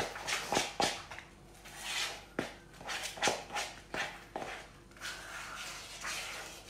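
Buttercream being stirred in a plastic mixing bowl: the utensil knocks irregularly against the bowl, about a dozen times, then scrapes more steadily around the sides near the end.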